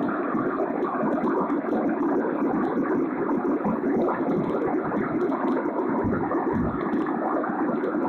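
A steady rushing noise that keeps an even level throughout, with no distinct strikes or calls standing out.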